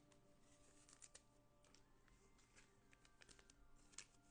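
Near silence: room tone with faint, scattered small ticks and clicks, the sharpest about four seconds in.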